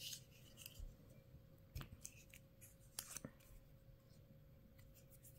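Faint clicks and light rustling of hands handling a plastic bottle of Clover craft glue and working its green cap, with a few sharp ticks spread through the quiet.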